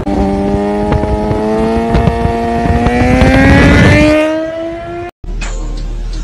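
Motorcycle engine accelerating, its pitch rising steadily for about four seconds over the rush of wind, then fading and cutting off abruptly about five seconds in. A quieter, different sound follows.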